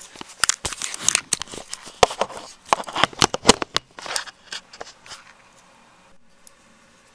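Handling noise: a quick irregular run of clicks, knocks and rustles as the camera is moved about and set up over a table, dying away about five seconds in to a quiet room hum.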